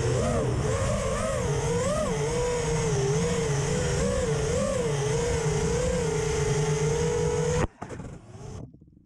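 Motors of a 4S FPV racing quadcopter (Apex Hornet 2306.6 2555KV motors with Gemfan Hurricane 5-inch props), heard from its onboard camera: a loud whine whose pitch swings up and down with the throttle during freestyle flight. Near the end it cuts off with a sharp knock as the quad comes down on the pavement, leaving near silence.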